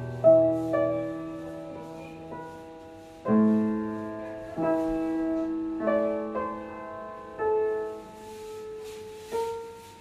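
Upright piano played slowly: a melody over chords struck every one to two seconds, each left to ring and fade, with a last note held and ringing out near the end.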